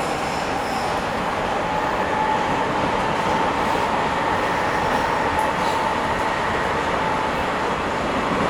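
Bucharest metro train on line M1 running between stations, heard from inside the car: a steady rumble of wheels and running gear, with a faint whine that rises slightly over the first couple of seconds and then holds.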